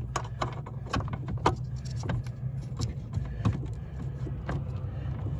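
Scattered light metallic clicks and taps as a small open-end wrench is worked, a little at a time, on a bolt under a car's dashboard, over a steady low hum.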